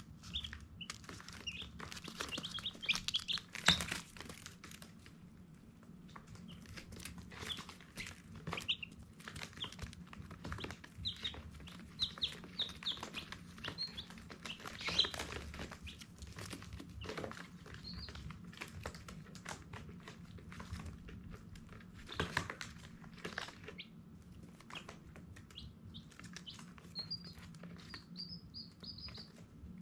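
Baby chicks peeping: many short, high chirps scattered throughout, with a quick run of them near the end. Occasional sharp taps or scratches and a low steady hum lie underneath.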